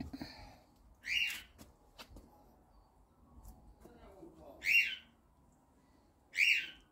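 A bird calling three times outdoors: short, high, arched calls about a second in, just before five seconds and near the end.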